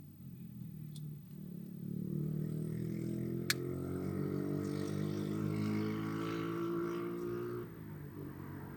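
A motor vehicle's engine running, growing louder over the first two seconds, holding steady, then dropping away near the end. A single sharp click comes about three and a half seconds in.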